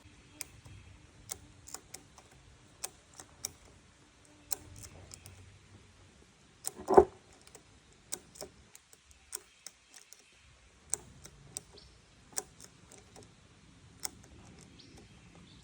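Strap ratchet being worked to tension a log: a series of sharp separate clicks, with one much louder knock about seven seconds in.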